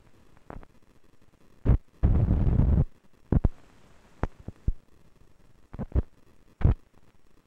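Scattered loud pops and clicks from an old film's optical soundtrack running over blank, scratched leader, with a short burst of loud low noise about two seconds in.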